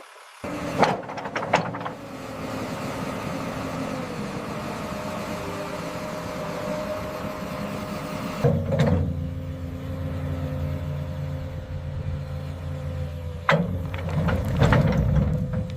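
Heavy construction machine's engine running steadily with a high whine over it, broken by sharp knocks about a second in, again around the middle, and twice near the end. The engine grows louder from about halfway through.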